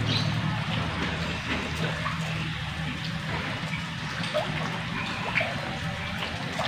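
Water running and trickling steadily, with scattered small drips and a low steady hum underneath.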